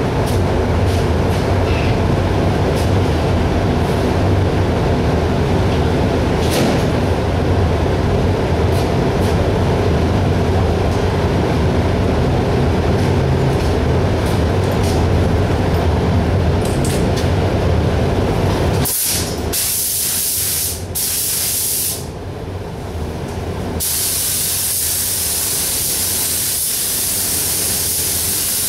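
A steady low machine drone, which stops suddenly about two-thirds of the way through. Then an air spray gun hisses, first in a few short bursts and then in one long continuous pass, as it sprays hardener-mixed paint onto a truck's grille and front bumper.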